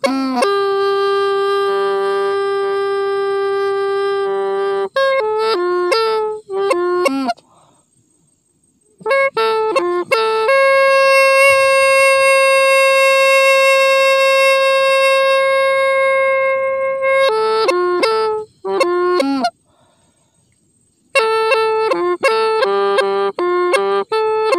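Hmong raj le bamboo pipe playing a melody: runs of quick, short notes between two long held notes, the second higher and longer than the first, with two brief pauses.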